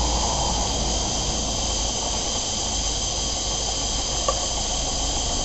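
Model live-steam engine with a governor running on steam from a gas-fired boiler: a steady hiss of steam with no distinct exhaust beats.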